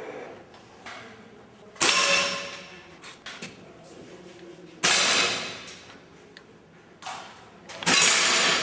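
Three sharp reports from a break-barrel rifle, about three seconds apart, each dying away over about a second, with smaller clicks in between.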